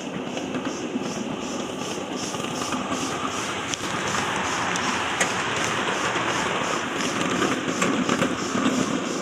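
Train behind a steam locomotive rolling along the track: a steady rumble and rush of noise with a quick, regular pulse about three times a second and a few sharp clicks from the wheels in the second half.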